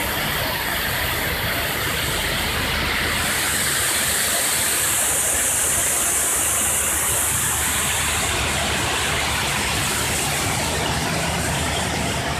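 Meibang belt filter press running as it dewaters sludge: a steady low machine hum under the splashing of filtrate water pouring and dripping off the filter belts. The watery hiss is loudest from about three to eight seconds in.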